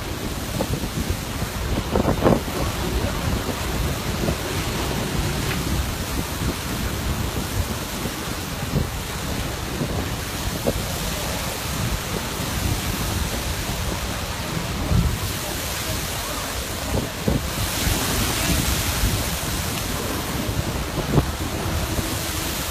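Steady rushing noise of surf churning and wind on the microphone where a stream of lava pours into the sea, with a few low thumps. About three quarters of the way in, the high hiss grows stronger for a couple of seconds.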